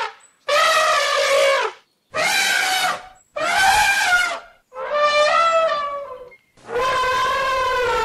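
Elephant trumpeting: a series of about five calls, each one to one and a half seconds long and held on a steady pitch, with short silences between them. The last call is still sounding at the end.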